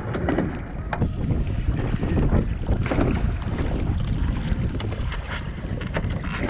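Wind buffeting the microphone over choppy sea, with water slapping and splashing against a paddle ski's hull.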